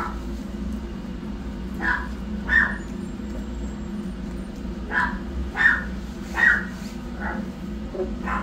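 Newborn kittens mewing: about seven short, high-pitched cries, two near two seconds in and a run of five from about five seconds on, over a steady low hum.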